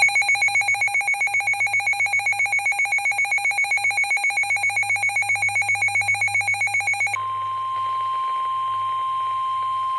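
Rapidly pulsing electronic alert tone, about seven pulses a second, for roughly seven seconds. It switches abruptly to a steady single-pitch tone near 1 kHz, the NOAA Weather Radio warning alarm tone that comes before a severe weather warning.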